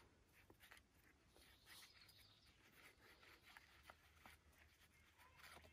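Near silence: faint scattered ticks and light rustling.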